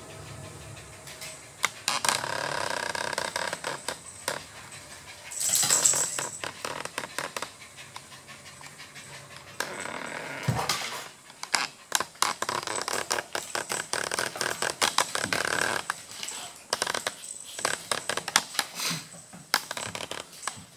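A Golden Retriever and a Maltese playing on a hardwood floor: claws clicking and scrabbling on the boards, with dog panting and bouts of rustling and scuffling.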